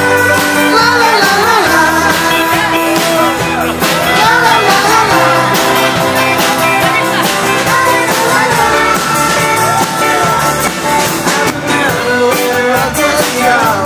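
Live band playing upbeat rock-and-roll dance music, with a singer, guitar and drums.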